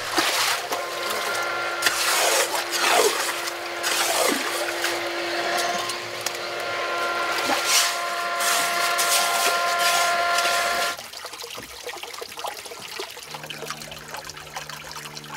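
Wet sand and shallow water being churned in a concrete pond bottom: feet sloshing and splashing through the slurry and a rake scraping the sand. The sound drops to a quieter wash about eleven seconds in.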